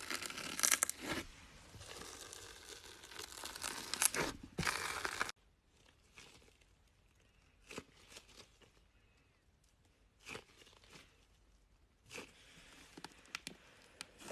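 Slime being squeezed and stretched by hand, making crackling pops and small clicks. It is busy for about five seconds, then thins to a few faint pops, and crackles again near the end.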